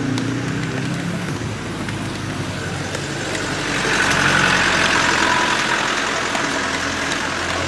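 Engine of an old Land Rover Series pickup running as it drives slowly past close by. It is loudest about four seconds in and then eases as the truck pulls away.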